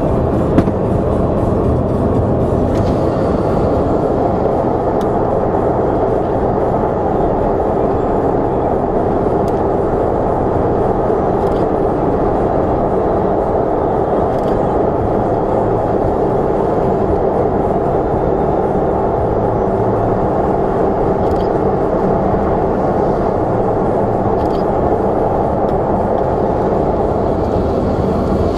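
Steady road and engine noise heard from inside a moving car, with a few faint ticks.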